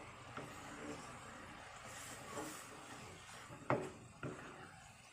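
Spatula stirring and scraping cooked shredded turnip in a pan, with a couple of sharp knocks against the pan near the end.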